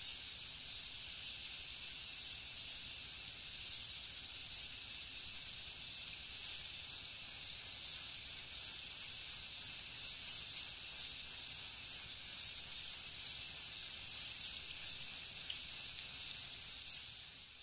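Insect chorus: a steady high-pitched chirring, joined about six seconds in by a louder pulsed call that repeats about twice a second.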